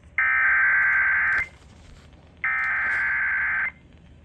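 Emergency Alert System SAME header heard over FM radio: two harsh, buzzing digital data bursts, each about a second and a quarter long and about a second apart. They encode the start of a severe thunderstorm warning.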